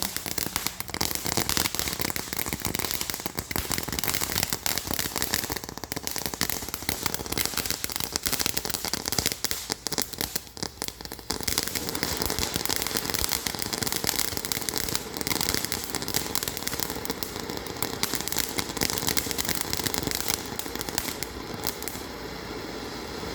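TNT eruption-type consumer firework fountain crackling continuously with a dense spray of rapid pops, easing briefly about halfway through before crackling on.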